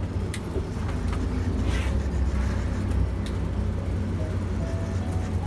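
Steady low rumble of the charter boat's engine running at idle, with a few light clicks over it.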